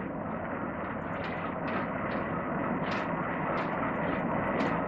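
WDM-3D diesel-electric locomotive running as it approaches at low speed with a goods train, its steady rumble slowly growing louder, with a few clicks or knocks, some of them about a second apart.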